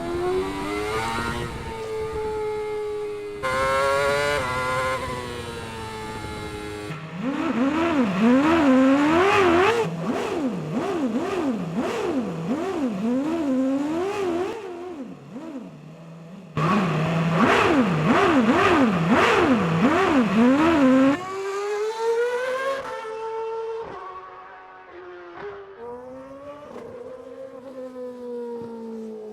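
Red Bull RB7 Formula One car's V8 engine revving hard, its pitch climbing and snapping back again and again in quick succession as it shifts through the gears. Several passages are cut together, ending with a quieter stretch at lower, steadier revs.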